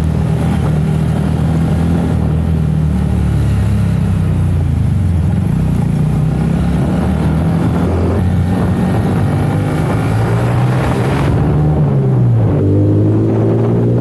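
Honda Monkey 125's single-cylinder engine pulling under acceleration, fitted with a high-flow air funnel intake. About eleven seconds in the pitch dips briefly, then climbs steadily as the revs rise.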